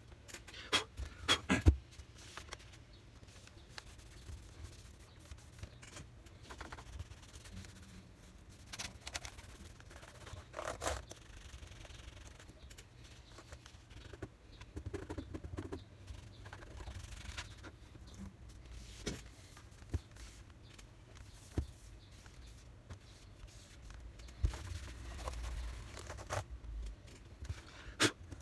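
Scattered small clicks, taps and scrapes of laptop parts and tools being handled, with a cluster of sharper clicks about a second in.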